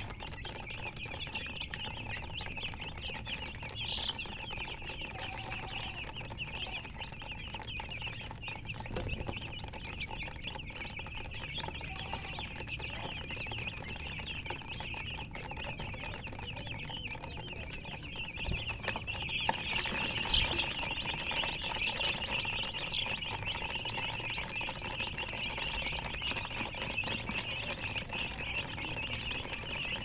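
A crowd of young chicks chirping continuously, many high peeps overlapping, growing louder about two-thirds of the way through.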